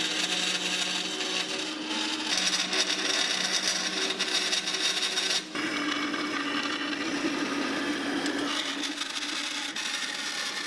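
Carolina vertical band saw cutting through a metal plate, its blade running steadily through the cut with a brief dip about halfway through.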